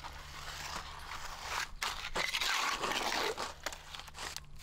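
Shovel digging into wet concrete mix in a metal wheelbarrow: a gritty scraping and crunching, loudest about two to three seconds in.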